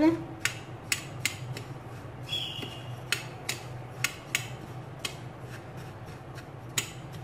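A metal spoon stirring dry breadcrumbs on a plate: gritty scraping broken by irregular sharp clicks as the spoon knocks against the plate.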